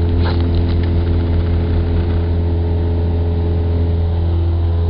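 Steady, unbroken engine drone of a vehicle, a strong low hum with several steady tones above it.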